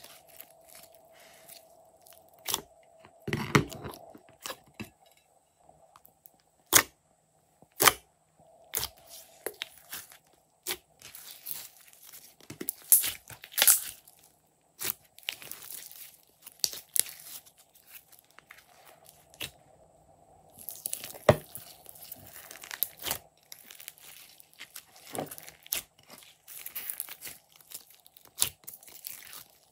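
Hands kneading, stretching and poking glossy slime: sticky crackling and squelching broken by many sharp, irregular pops, thickest in two busy spells.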